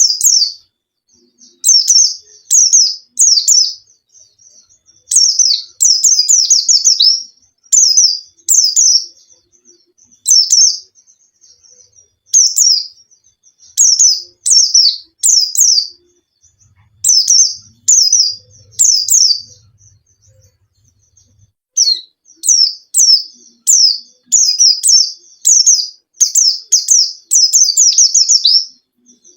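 A white-eye (pleci, Zosterops) singing: rapid strings of high, sharp chirps, each a quick falling note, in short bursts with brief pauses between them. This is a pleci lure song, played to set a quiet pleci singing.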